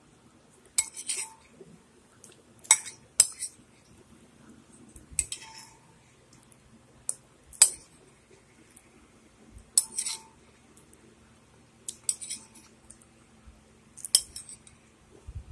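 A metal spoon clinking against a bowl of soup, about a dozen short, irregular clinks a second or two apart as it scoops.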